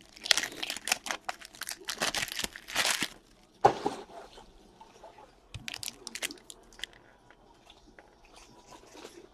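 Trading-card pack wrappers being torn open and crinkled: about three seconds of quick, dense rustling and tearing, then a single sharp tap, then a few softer crinkles.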